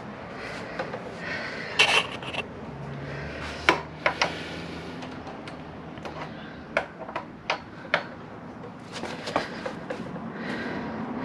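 Scattered metal clinks and knocks of a wrench and hex tool being worked against a stuck motorcycle front axle. The loudest come about 2 and 4 seconds in, with another run of lighter clicks in the second half.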